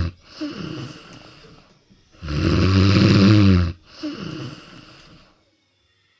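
Cat snoring: a loud snore on the breath in about two seconds in, with quieter breaths out before and after it. The snoring stops about five seconds in.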